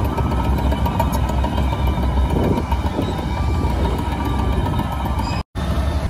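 Shantui DH17C2 LGP crawler bulldozer's diesel engine running as it works soil, with clanking and a short beeping tone repeating about once a second. The sound cuts out for a moment near the end.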